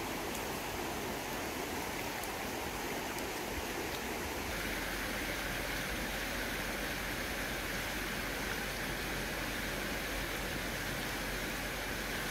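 Steady rushing of a shallow river running over stones, with a slightly brighter tone from about four and a half seconds in.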